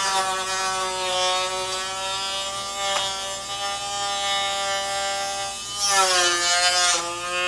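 Small handheld electric rotary tool running with a steady high whine, its pitch sagging twice near the end as it is loaded against the plastic part being worked.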